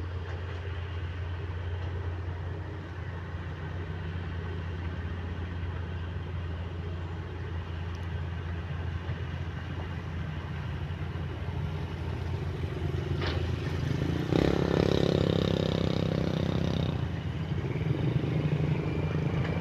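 Diesel engines of heavy earthmoving machines (excavator and bulldozer) running steadily. About 13 s in there is a single sharp clank. Then for about three seconds the engine gets louder, as under load, before settling back.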